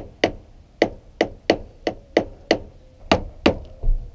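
Hammer tapping on a badly corroded car battery terminal clamp to knock it loose from its post: about ten sharp metallic strikes, roughly three a second.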